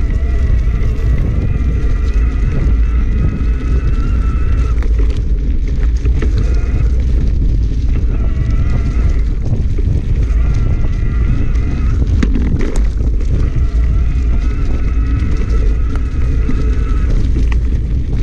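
Mountain bike ride on a dirt trail, heard from the rider's camera: a steady, loud rumble of wind buffeting and tyres running over dirt. A high, steady whine comes and goes several times over it.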